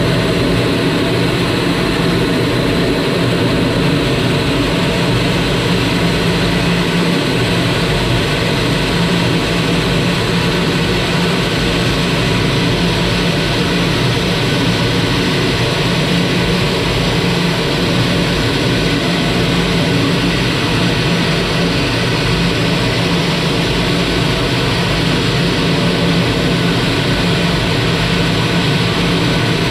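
Canadair CT-133 Silver Star jet trainer's Rolls-Royce Nene turbojet running steadily in flight: a loud, unchanging rush of noise with a low steady hum underneath.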